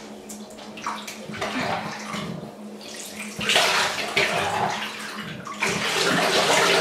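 Water splashing and sloshing in a bathtub as a Pomeranian is wetted down by hand, louder from about halfway through.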